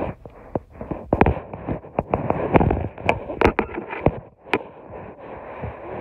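Phone being handled and swung about: a string of irregular sharp knocks and clicks on its microphone, with rubbing noise in between.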